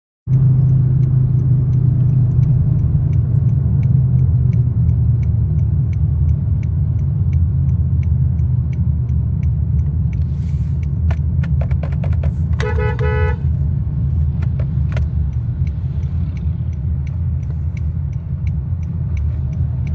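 Steady low rumble of road and engine noise inside a car cabin, with faint regular ticking through the first half. About 13 seconds in, a short pulsed car horn beeps.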